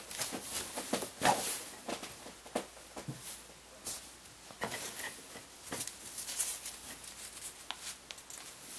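Cotton t-shirt being unfolded and handled, the fabric rustling in irregular soft brushes with a few light ticks.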